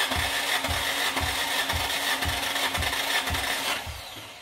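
Nissan SR20DET four-cylinder engine being cranked over on its starter motor with the spark plugs out and no fuel or spark, so it does not fire. There is a steady starter hum with a pulse about twice a second. This is the cranking for a compression test of cylinder four, which reads low at about 90 psi. The cranking stops near the end.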